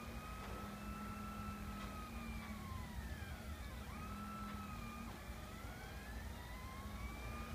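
Stepper motors of a homemade CNC pen plotter whining as the pen carriage travels, the whine gliding slowly up and down in pitch as the axes speed up and slow down, over a low steady hum.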